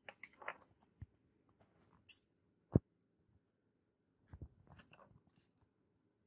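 Small handling noises of a metal eyeglass frame and a precision screwdriver on a tabletop: scattered light clicks and rustles, with one sharper knock nearly three seconds in.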